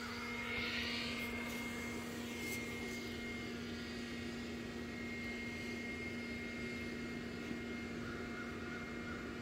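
Steady mechanical drone: a constant low hum with a fainter high whine above it.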